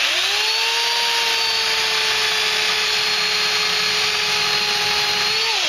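Remington Limb N Trim RM1425 8-amp electric chainsaw starting up on the trigger and cutting through a white birch log at a steady pitch. Near the end the pitch lifts briefly, then the saw winds down and stops.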